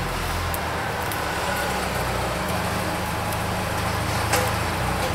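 Steady low drone of a running engine, fading away right at the end, with a single light click about four seconds in.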